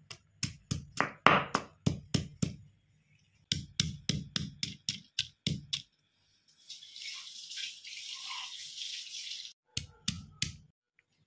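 Stone pestle pounding in a stone mortar: quick, rhythmic stone-on-stone knocks, about five a second, in two runs. A few seconds of steady hiss follow, then three more knocks near the end.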